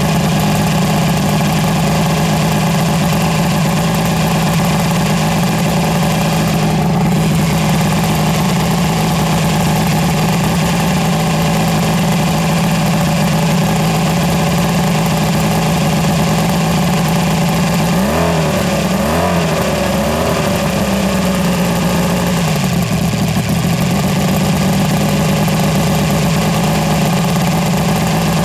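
1976 Mercury inline-six two-stroke outboard engine running steadily at idle on the transom. About two-thirds of the way through its pitch briefly sags and wavers back up.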